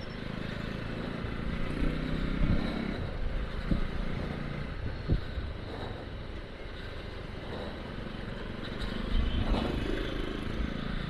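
Bajaj Pulsar NS200 motorcycle's single-cylinder engine running as the bike rides through traffic. The engine note swells twice, about two seconds in and again about nine seconds in, and there is a short knock about five seconds in.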